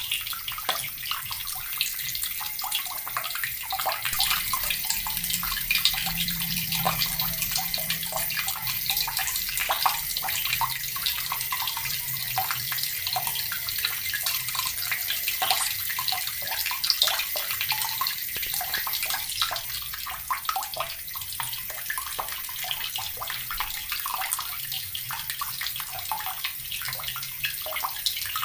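Water from a tap splashing steadily into a plastic bucket, a continuous splashing and gurgling stream.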